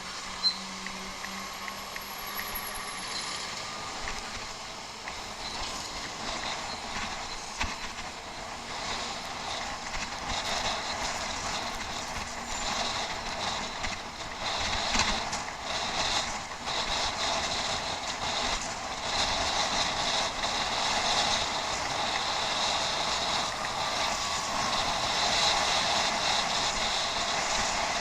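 Bicycle being ridden off-road: a steady hiss of tyres on rough ground with scattered clicks and rattles from the bike, growing louder over the second half, and one sharp click about half a second in.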